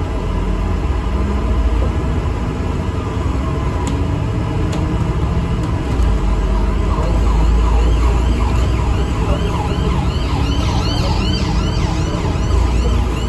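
An emergency vehicle's siren sweeping up and down in pitch, starting about halfway through and growing louder and faster toward the end. Under it runs the steady low rumble of an ADL Enviro 400 MMC double-decker bus under way.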